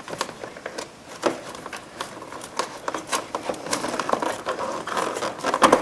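A small flat-blade screwdriver prying at the plastic locking tab of a car door's power mirror switch: scattered small plastic clicks and scrapes, with a louder cluster of clicks near the end.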